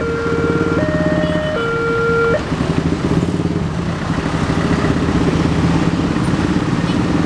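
Railroad crossing warning siren sounding a two-tone alternating alarm, a higher and a lower note each held just under a second; it stops about two and a half seconds in. A steady low engine rumble runs underneath throughout.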